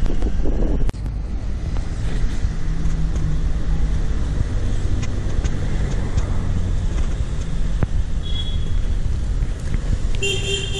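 Steady low rumble of street traffic, with brief high tones near the end.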